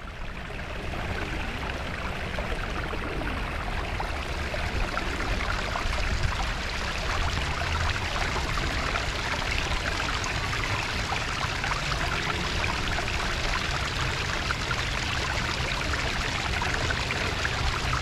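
Steady rushing of running water, like a stream or fountain, with a low rumble underneath, growing a little louder over the first couple of seconds and then holding steady.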